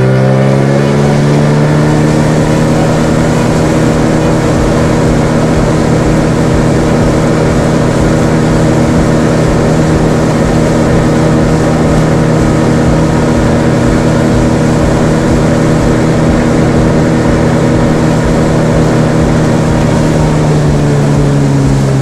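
Outboard motor pushing an inflatable boat at speed: a steady, loud drone that climbs in pitch just at the start and drops as the throttle eases off near the end, over the rush of wind and water.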